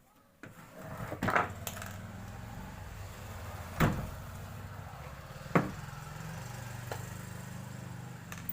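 Hand tools undoing the nut that holds an amplifier's driver board: a handful of sharp metal clicks and knocks, a second or two apart, over a steady low hum.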